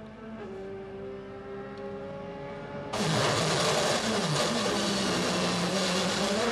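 Honda Civic WTCC touring car's 1.6-litre turbocharged four-cylinder engine at racing speed. It is heard at first from trackside as the car approaches, its note slowly rising. About three seconds in it becomes much louder and rawer from the onboard camera, and the pitch dips and climbs again twice with gear changes.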